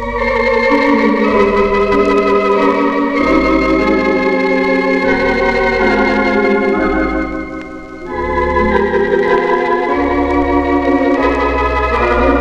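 Organ playing a slow hymn in sustained chords over deep bass notes. The music dips briefly about eight seconds in before the next phrase.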